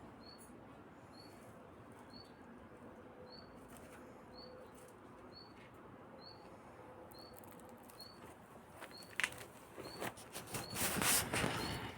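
A faint, high chirp repeating evenly about twice a second, then bursts of rustling and scratching in the last few seconds.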